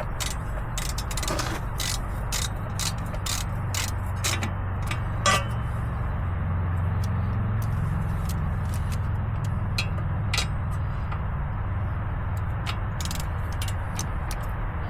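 Hand wrench working on the hub's retaining bolts: a run of irregular metallic clicks, dense for the first five seconds or so and sparser after, over a steady low rumble.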